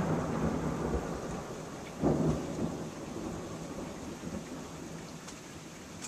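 Thunder rumbling over steady rain, with a second louder clap about two seconds in that fades away slowly.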